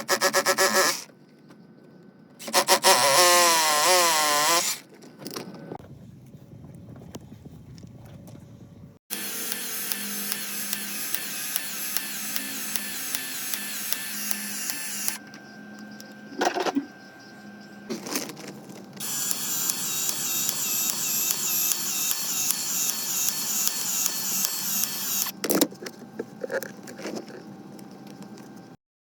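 Power tools running in several separate runs with pauses between. Around 3 to 4 s a motor whine speeds up and slows down, and two longer runs with a rapid regular pulse come later.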